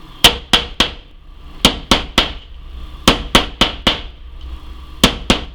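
Hammer tapping the point of a nail to blunt it: about a dozen sharp strikes in quick groups of three or four, each with a short ring. A blunted tip lets the nail pound its way through the wood instead of splitting it.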